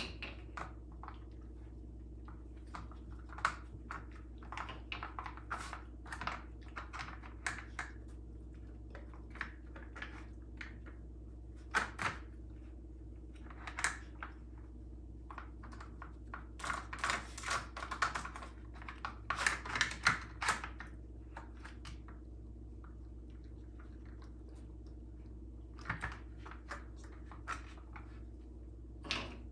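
Plastic lids and sliders of a Dog Brick puzzle feeder clicking and clattering on a tile floor as a dog noses and paws them open for food, in irregular flurries of quick clicks with pauses between.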